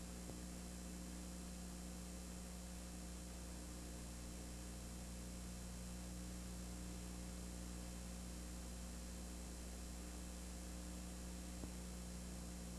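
Steady electrical hum with a layer of hiss, a noise floor with no game sound in it; a single faint tick comes near the end.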